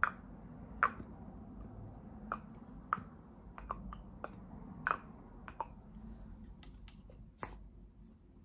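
Irregular sharp taps and clicks close to the microphone, about a dozen over several seconds: ASMR tapping and handling of an object, stopping shortly before the end.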